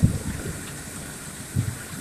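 Rain falling steadily on a tin roof, with low, uneven rumbles of thunder.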